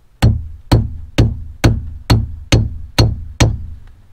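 Hammer blows crimping a terminal onto a ground wire, with the terminal resting on a second hammer used as an anvil. Eight sharp strikes, about two a second and evenly spaced.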